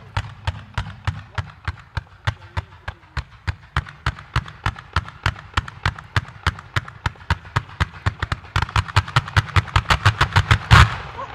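Italian Vaccalluzzo fireworks: firework comets fired from the ground in fans, in quick succession, each shot a sharp bang, about four a second, quickening toward the end. Near the end there is one much louder bang.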